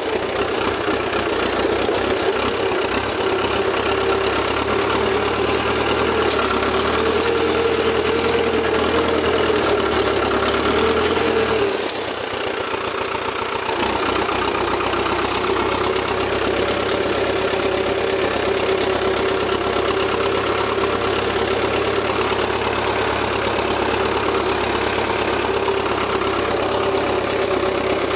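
Valmet 86 iD tractor's diesel engine running steadily under load while its blade pushes through brush. The engine note is a little higher for several seconds, then drops with a brief dip in loudness about twelve seconds in and settles steady again.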